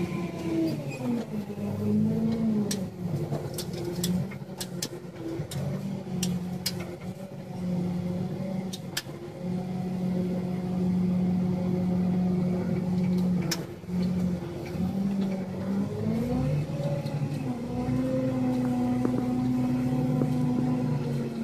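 A machine's engine running and changing speed, its pitch gliding up and down with brief dips, with scattered sharp clicks.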